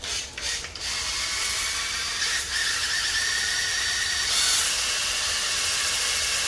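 Battery-powered drill spinning a cylinder hone in an engine block's bore: a few short bursts, then a steady run with the stones scraping the cylinder wall.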